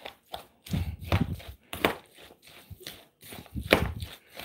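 Metal spoon stirring shredded cabbage and dressing in a plastic bowl: irregular scraping, clicking strokes against the bowl's side, with moist rustling of the cabbage.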